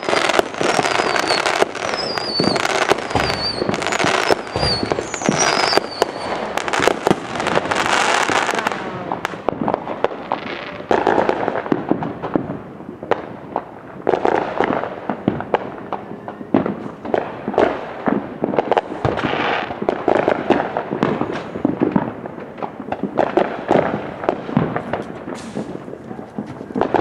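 Aerial fireworks bursting and crackling: a dense barrage of pops with short falling whistles for the first several seconds, then thinning to scattered bangs and crackles.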